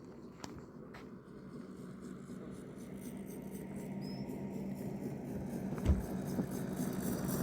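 A motor vehicle's engine running with a steady hum, growing louder as it comes closer, with a low thump about six seconds in.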